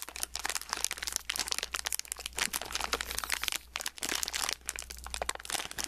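Foil blind-bag packet crinkling and crackling as it is handled in the hands, a dense run of irregular crackles.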